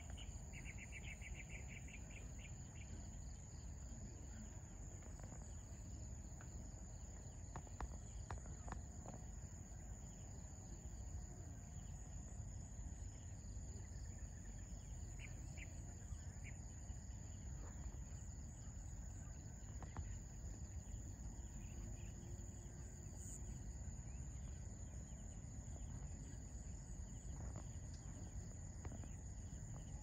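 Crickets trilling in one steady, unbroken high-pitched drone, faint, over a low outdoor rumble, with a short rapid run of chirps in the first few seconds.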